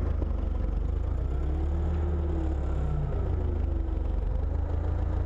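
Steady low machine hum with a faint wavering tone over it.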